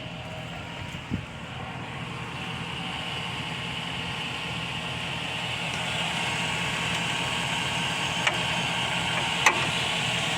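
2007 GMC truck engine idling with the hood open, with a constant whine from the lower front of the engine, which the owner suspects is the harmonic balancer or the water pump. The sound grows slowly louder, and there are two short clicks near the end.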